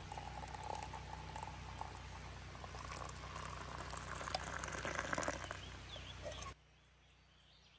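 Water poured in a thin stream from a metal camp pot into coffee in an insulated mug, a steady splashing that grows a little louder as the mug fills. It cuts off suddenly about six and a half seconds in.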